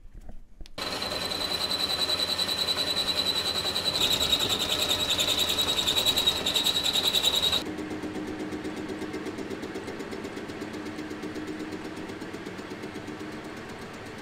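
A machine tool starts about a second in and runs loud, with a high steady whine and fast chatter. It cuts off abruptly after about seven and a half seconds and is replaced by a metal lathe turning a part: a quieter steady hum that slowly fades.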